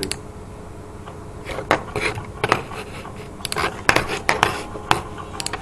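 Irregular sharp clicks and scrapes of small hard objects being handled, about a dozen in all, the densest and loudest between the middle and near the end.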